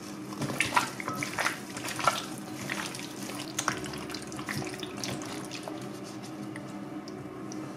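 Gloved hands squishing chunks of raw chicken through a thick yogurt marinade in a glass bowl: irregular wet squelching, with sharper smacks in the first few seconds.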